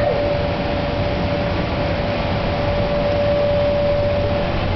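Children's amusement ride car running along, a steady rumble with a constant high hum.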